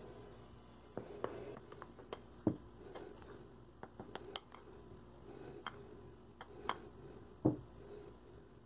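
Metal spoon stirring crumbly cornstarch dough in a bowl: soft scrapes and scattered light clicks of the spoon against the bowl, the loudest about two and a half and seven and a half seconds in.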